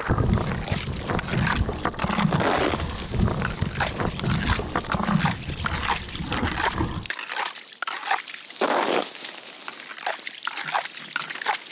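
Water sloshing and splashing in an ice-fishing hole, with knocks of handling, loud and full for about seven seconds; then it gives way to quieter scattered crunches and clicks.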